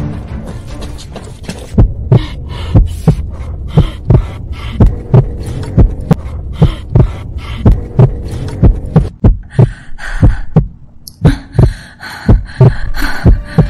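Heartbeat sound effect used as a suspense cue: low double thumps, about one pair a second, over a faint hum, starting about two seconds in.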